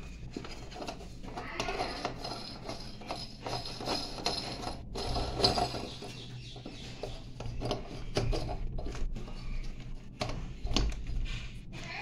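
Stainless-steel door knob lock rattled and turned by hand, with irregular metallic clicks and clatters.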